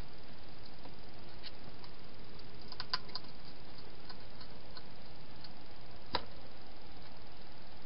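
A hedgehog eating from a bowl inside a plastic feeding box: a few small scattered clicks and crunches, a short cluster about three seconds in and a sharper click about six seconds in, over a steady hiss.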